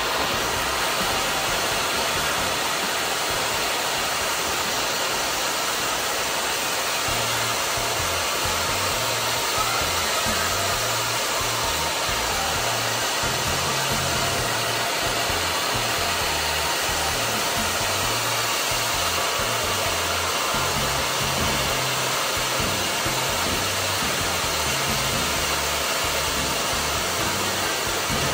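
Several ground fountain fireworks spraying sparks with a steady, even hiss.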